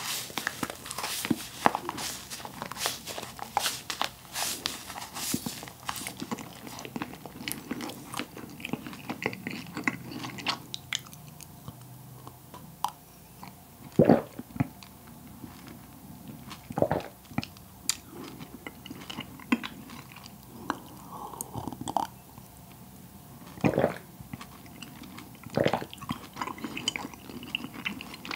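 Close-up mouth sounds of soft compressed cotton candy being chewed, with many moist clicks, densest over the first few seconds. About halfway through come a sip of warm coffee and a few louder gulps.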